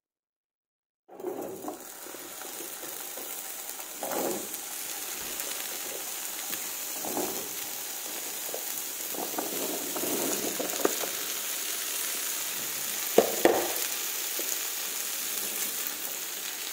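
Diced raw potatoes sizzling in hot oil in a non-stick frying pan. The sizzle starts about a second in and holds steady, with a few short knocks and clatters as more pieces are dropped in, the sharpest a few seconds before the end.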